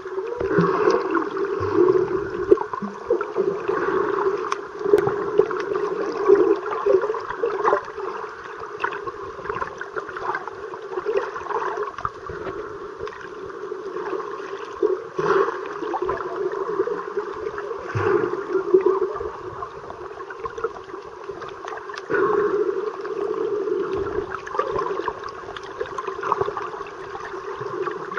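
Muffled underwater sound picked up by a submerged camera: water swirling and gurgling around the housing over a steady low hum, swelling and easing irregularly, with a few faint clicks.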